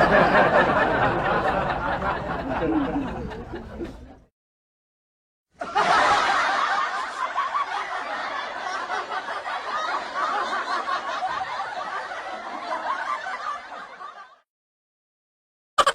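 Laughter in two long stretches, the first fading out about four seconds in and the second starting after a silent gap and fading out near the end. A short rattling sound begins at the very end.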